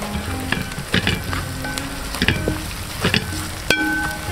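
Shallots, green chillies, curry leaves and whole spices sizzling in hot oil in a large aluminium pot, stirred with a wooden spatula that scrapes and knocks against the pot several times.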